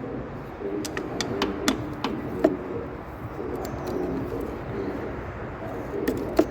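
A pigeon cooing, a low repeated coo in phrases, with a few sharp metallic clicks of tools being handled.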